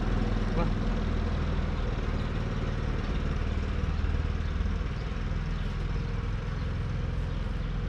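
An engine running steadily at idle, a continuous low hum.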